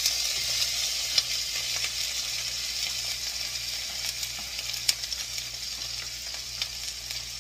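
Onions frying in a little hot oil in a pot, sizzling with a steady hiss and a few sharp pops.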